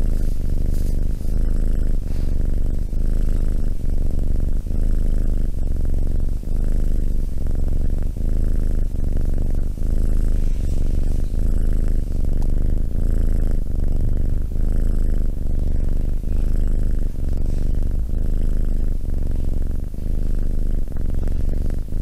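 Tabby kitten purring steadily, close-miked, the purr pulsing in an even rhythm of about three swells every two seconds as it breathes in and out.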